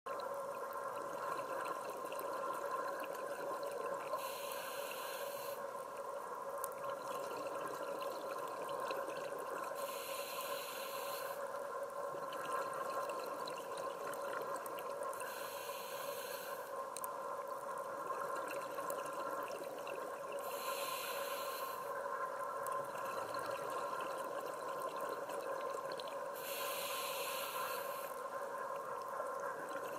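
Scuba diver breathing through a regulator underwater: five breaths, each a hissing, bubbling rush lasting about a second and a half, coming roughly every five and a half seconds over a steady hum.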